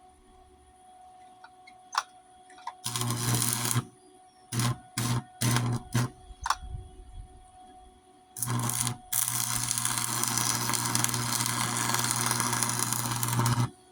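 Electric arc welder running on a steel mower deck: a short burst of steady buzzing hiss about three seconds in, several quick bursts after it, then one long continuous bead of about five seconds near the end. The thin deck steel is burning through, and the welder may be set too hot.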